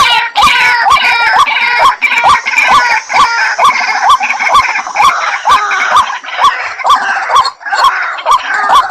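White-breasted waterhen calling: a hooked note repeated about twice a second over a layer of harsher, croaking chatter, with a brief break near the end.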